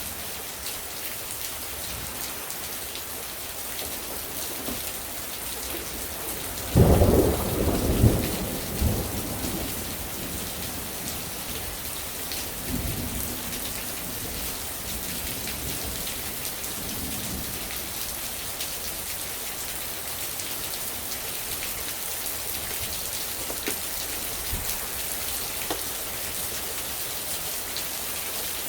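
Steady rain falling, with a thunderclap about seven seconds in that rolls away over a few seconds, followed by fainter rumbles of thunder.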